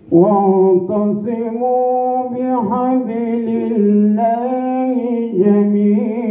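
A man reciting the Quran in a slow melodic chant (tajweed). He holds long notes that step and waver in pitch, with a brief break about five seconds in.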